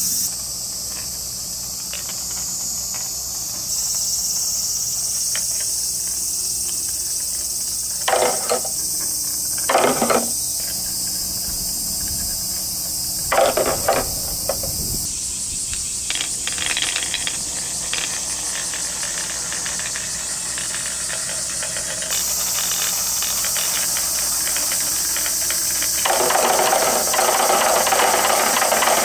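Steady high-pitched insect chorus throughout. Over it, wooden marble-run clatter: marbles rolling and knocking down a zigzag wooden ramp in short bursts about 8, 10 and 13 seconds in, and a longer run of rolling near the end.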